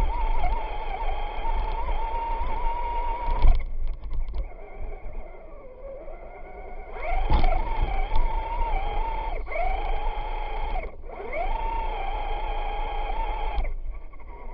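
Traxxas Stampede RC truck's electric motor whining under throttle, picked up by a camera mounted on the truck, over a low rumble. The whine cuts out about three and a half seconds in, comes back rising in pitch around seven and ten seconds, drops out briefly near eleven seconds and stops near the end.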